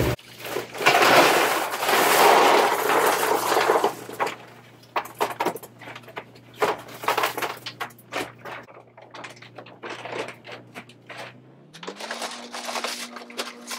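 Salt pellets poured from a plastic bag into a water softener's brine tank: a loud rushing clatter for about three seconds, then scattered pellet clicks and bag rustling, with a lighter pour near the end.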